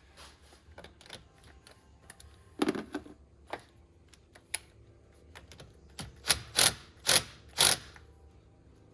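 Hand-tool work on a truck: scattered light metallic clicks and clinks, a louder knock about a third of the way in, then four sharp knocks in quick succession near the end.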